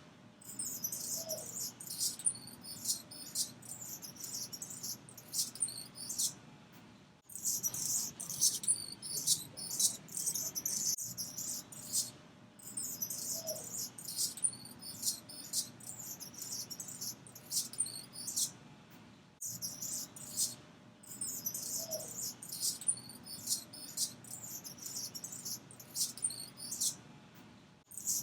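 Anna's hummingbird giving high, scratchy, buzzy chirps in rapid runs several seconds long, broken by short pauses.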